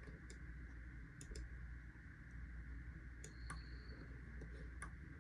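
Computer mouse clicking a few times at irregular intervals over a steady low electrical hum.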